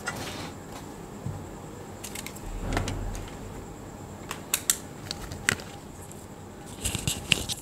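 Handling noise: scattered small clicks and clinks of hard objects, with a brief low rumble about three seconds in and a jangling metallic rattle near the end.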